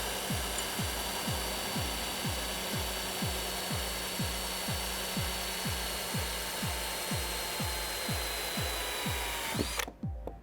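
Electric drill running a sensor-kit hole-cutting bit through a plastic car bumper: a steady motor whine over grinding cut noise. The whine sags slightly and the drill stops about ten seconds in.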